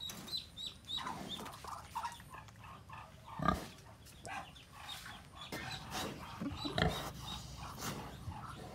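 Domestic pig grunting in short, irregular grunts at close range, with two dull thumps, one about three and a half seconds in and one near seven seconds.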